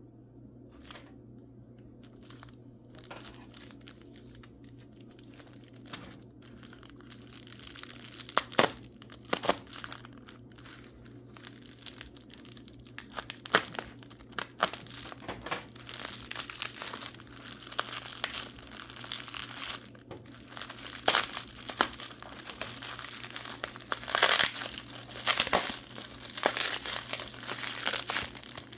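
Packing wrapping crumpled and torn off by hand from a mineral specimen, in sharp irregular crackles that grow busier and louder from about halfway in.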